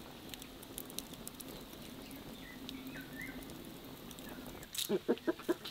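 Wood fire crackling in a clay dome oven, with scattered sharp pops. A small bird chirps faintly about halfway through, and near the end chickens start clucking in short repeated calls.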